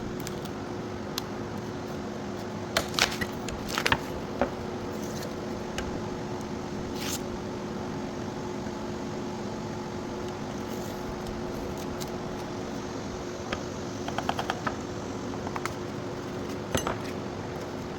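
Putty knife prying a carved pine piece off a CNC wasteboard: scattered scrapes, clicks and small knocks of metal on wood, with a quick run of ticks about three-quarters of the way through, over a steady background hum.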